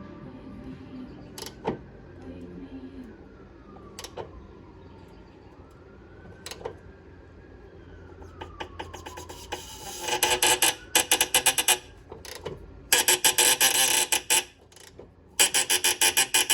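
Impact tool hammering in several short, loud bursts from about ten seconds in, working to break a stuck fastener loose on the steering rack.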